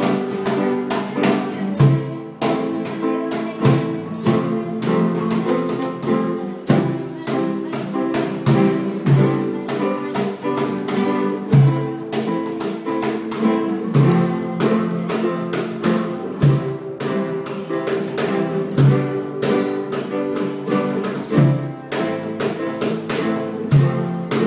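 Two nylon-string classical guitars strummed together in a steady rhythm, with a cajón beaten by hand underneath, its deeper bass hits landing about every two seconds.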